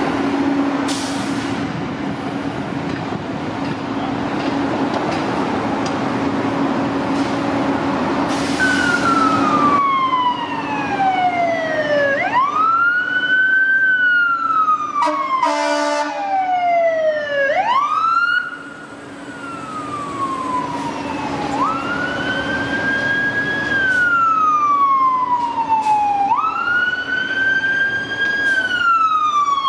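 A fire engine's siren wails as it approaches, starting about a third of the way in. Each cycle rises quickly in pitch, then falls slowly, about every four to five seconds. A short air-horn blast comes near the middle, over steady traffic and engine noise.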